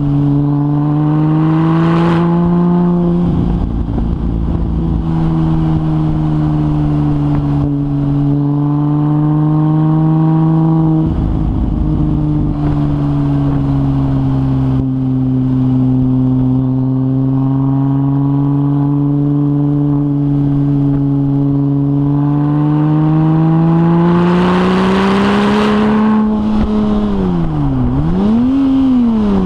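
Porsche 996 Turbo's twin-turbo flat-six with a decatted stainless exhaust, running under way at a steady, gently wavering pitch. Near the end the note climbs with a rushing hiss, then drops sharply, rises briefly and falls away.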